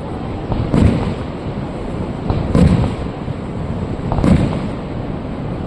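Aerial fireworks shells bursting: three booms about a second and three-quarters apart, each a sharp bang trailing into a low rumble, over a steady rushing background.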